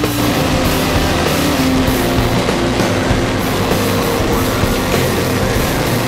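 Loud rock music with distorted guitars and a steady beat.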